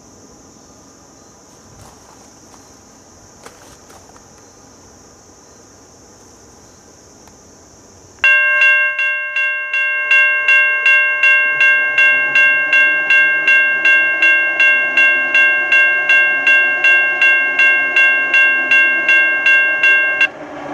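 A steady high insect drone, then about eight seconds in a railroad crossing bell starts ringing loudly at about two and a half strokes a second, stopping abruptly near the end. A low rumble from the approaching train grows beneath it.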